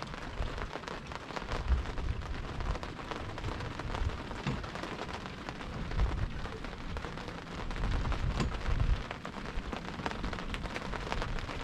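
Steady rain falling, heard as an even hiss with many small drop ticks and a few low rumbles.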